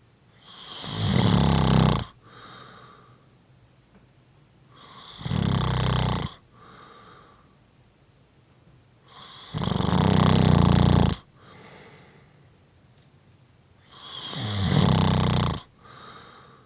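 A sleeper snoring: four long, loud snores about every four to five seconds, each followed by a shorter, softer breath sound.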